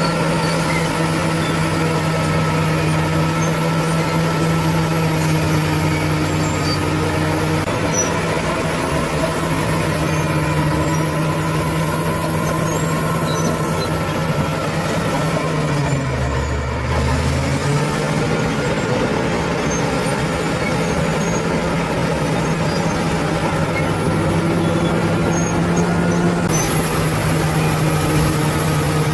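Bulldozer's diesel engine running steadily at working revs; about halfway through, its note dips and comes back up within a second or so.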